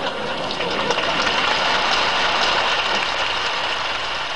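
Congregation applauding, many hands clapping in a dense patter that slowly fades toward the end.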